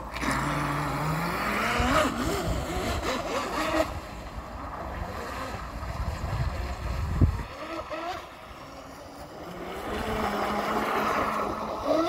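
Radio-controlled speedboat's electric motor whining as it runs across the pond, its pitch rising and falling again and again with the throttle.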